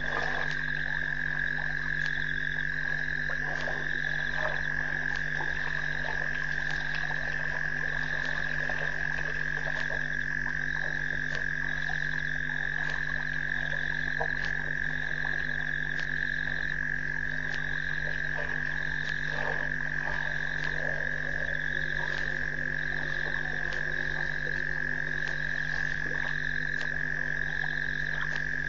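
Frog chorus at a waterhole at night: a steady, unbroken chorus with a higher call repeating about every second and a half over it.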